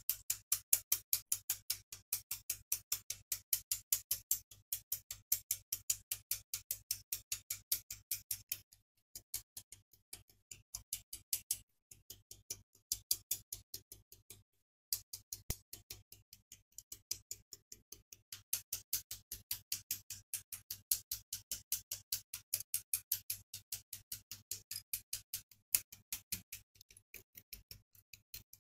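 Rapid, evenly spaced ticking, several clicks a second, with three short drop-outs near the middle.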